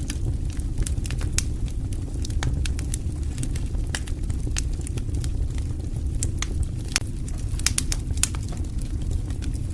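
Wood campfire crackling: frequent irregular sharp pops and snaps of burning wood over a low steady rumble of the flames.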